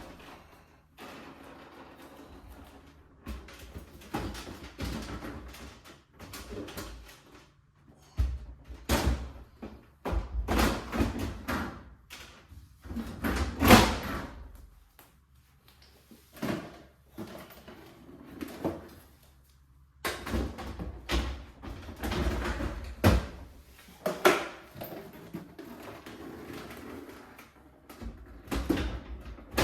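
Refrigerator shelves being put back into the refrigerator: repeated knocks and rattles, the loudest about 14 seconds in.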